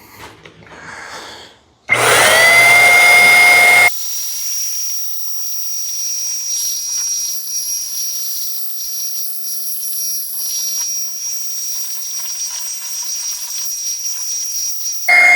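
Electric paint sprayer switching on about two seconds in with a quickly rising whine, running loud for about two seconds, then settling into a quieter hissing run with a thin steady high tone. The loud whine returns right at the end.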